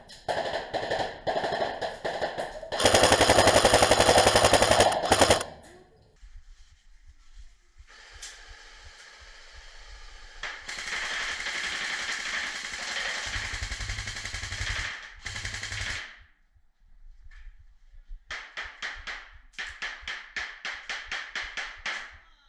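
Airsoft electric rifles firing in rapid full-auto bursts, loudest in the first five seconds. A quieter continuous rattle runs through the middle, and near the end comes a quick string of evenly spaced shots, about seven a second.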